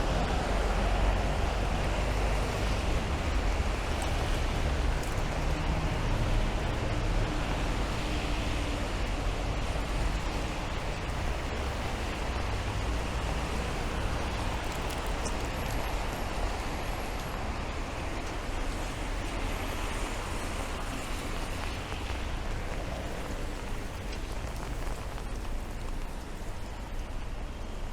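Steady rain in a city street mixed with road traffic. The low rumble of vehicles is loudest at the start and slowly fades.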